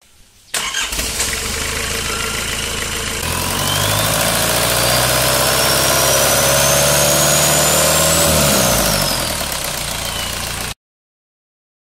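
Nissan TD27 four-cylinder turbo-diesel running. About three seconds in it is revved up and held, with a thin whine climbing in pitch, then drops back about eight seconds in. The sound cuts off suddenly near the end.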